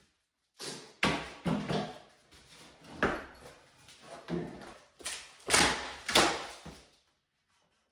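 Wooden boards and a large wood panel knocking, scraping and clattering as they are pulled loose and moved during demolition of a framed-in closet. About eight separate knocks and scrapes, the loudest near the end, then it stops.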